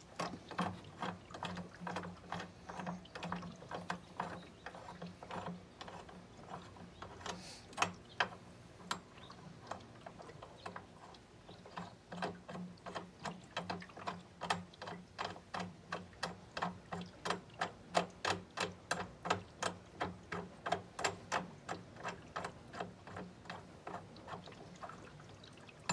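Ratcheting clicks, two to three a second, as the bolt on a cartridge pool filter's clamp band is run in to close the tank. A faint steady low hum runs underneath.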